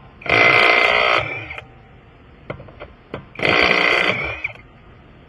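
Impact wrench run in two bursts of about a second each, the second about three seconds after the first, with light clicks of handling between: loosening the lug nuts on a wheel.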